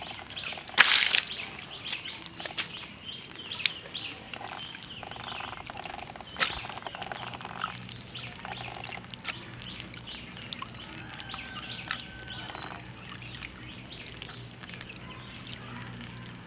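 Wash water splashing out of a clay pot of small rinsed fish about a second in, then scattered light clicks and knocks as the fish and pot are handled. Birds chirp in the background.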